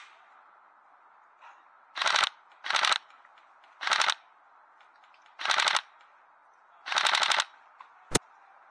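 Airsoft rifle firing five short full-auto bursts of rapid shots, a second or so apart, followed by one sharp click near the end.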